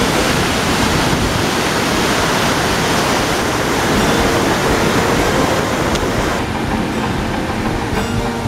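Loud, steady rush of water churning into a canal lock chamber through the gate sluices as the lock fills. The rush eases in the last couple of seconds.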